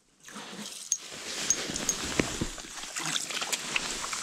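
Wet slushing and trickling of meltwater and slush on flooded lake ice around an ice-fishing hole, with a few small clicks scattered through it.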